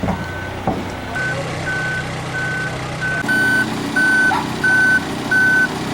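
Vehicle backup alarm beeping steadily about one and a half times a second, louder from about three seconds in, over a diesel engine running. Two sharp knocks in the first second.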